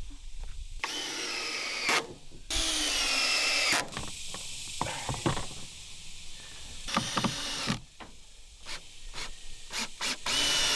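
Power drill running in four short bursts, its motor whining as it drills, with handling clicks in between.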